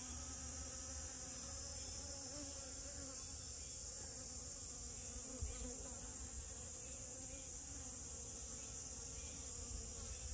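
Honeybee buzzing in flight, a low wingbeat hum that wavers in pitch as it moves about, over a steady high-pitched hiss.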